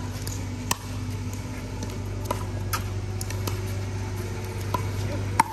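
Pickleball rally: a series of sharp pops from paddles striking the plastic ball, about eight in five seconds at an uneven pace, over a steady low hum.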